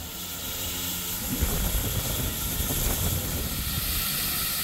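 Steam hissing steadily from a GWR 4575 class Small Prairie 2-6-2T tank locomotive. It sets in at the start, with a steady hum that stops about a second in and an uneven low rumble after it.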